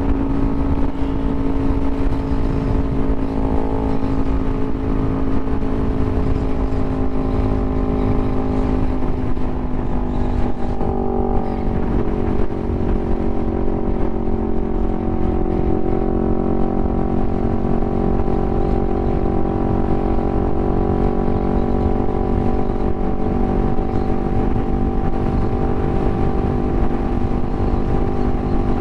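Yamaha YZF-R3's 321 cc parallel-twin, fitted with an Akrapovič full exhaust, running steadily at highway cruising speed under heavy wind noise. Its note dips and settles about eleven seconds in.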